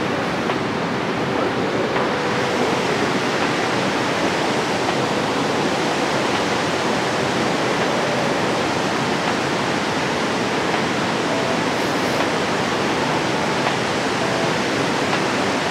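Steady rush of water pouring through a dam spillway, an even, unbroken roar of churning whitewater.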